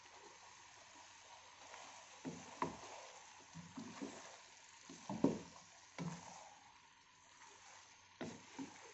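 Wooden spoon stirring chunks of eggplant and potato with minced meat in a cooking pot: irregular scrapes and knocks against the pot from about two seconds in, the loudest about five seconds in, over a steady hiss.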